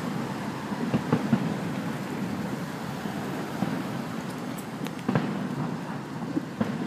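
Distant fireworks going off out of sight, heard as dull thunder-like booms: a few about a second in, another around five seconds and one near the end, over a steady rushing background noise.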